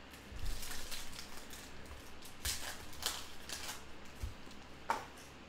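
Foil wrapper of an Optic basketball card pack crinkling and tearing as it is pulled open by hand, a run of crackles with one sharper crack near the end.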